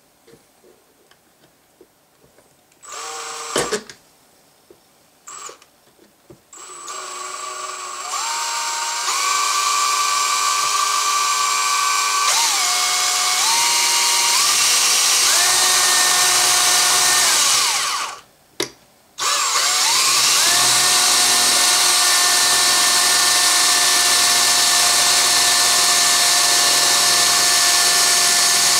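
Cordless drill drilling out a tough rivet on a rifle receiver's trigger-guard plate: a few short starts, then long runs of the motor whining, its pitch shifting up and down in steps, with a brief stop about two thirds of the way through.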